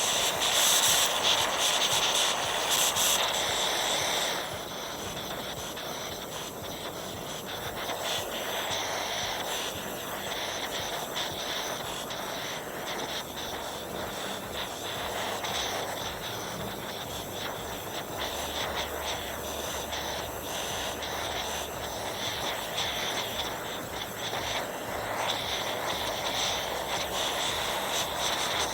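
Jeweller's gas torch flame hissing steadily as it heats a soldered joint until the solder flows. The hiss is louder for about the first four seconds, then settles lower.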